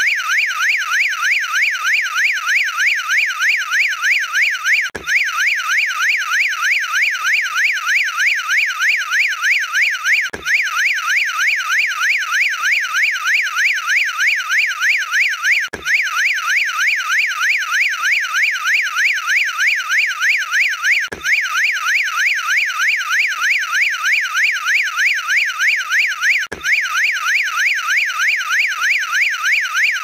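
Electronic motion-sensor alarm siren warbling rapidly up and down in pitch, about four sweeps a second, high and continuous. A short recording repeats as a loop, with a faint click at each join about every five seconds.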